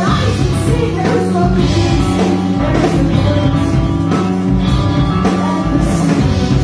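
Rock band playing loudly: guitars, bass and drums, with a steady beat.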